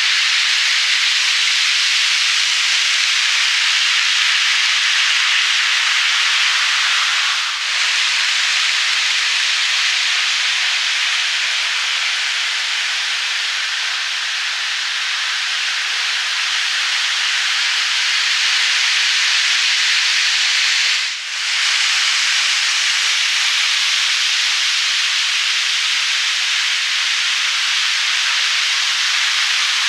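N gauge model Shinkansen trains running on elevated plastic track: a steady rushing hiss of wheels rolling on the rails and small motors, dipping briefly twice.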